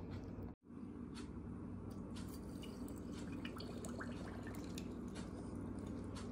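Juice poured from a carton into a glass: a faint trickle and small drips over a low steady hum.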